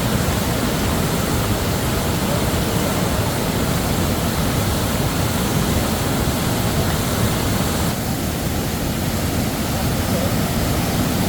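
Steady rush of a fast mountain river flowing over stones, an even roar with no breaks.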